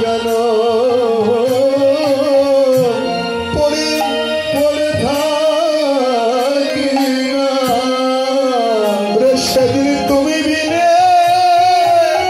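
A man sings a Bengali kirtan into a microphone in long, wavering held notes, with steady drum strokes beneath.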